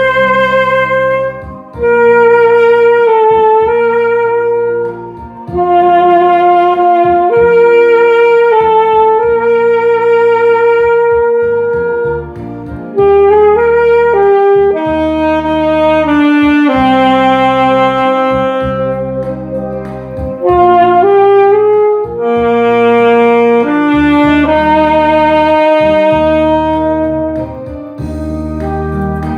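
Saxophone playing a slow melody of long held notes, with brief breaths between phrases, over a recorded backing accompaniment.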